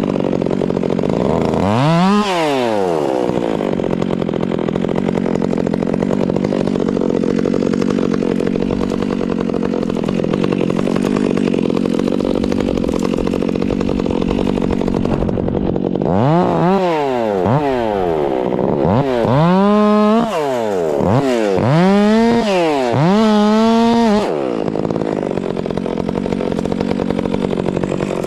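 Two-stroke chainsaw cutting wood under load, running at a steady, pulled-down pitch. There is one quick rev about two seconds in, and a run of throttle blips about two-thirds of the way through, the last few held high for a moment before it settles back into the cut.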